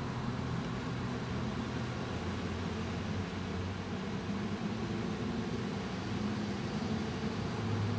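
Steady low hum over an even background hiss, with no distinct event.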